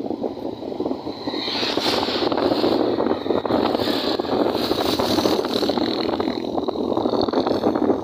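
Running noise of a moving road vehicle with wind rushing over the microphone, a dense steady rush that grows a little louder and brighter about a second and a half in.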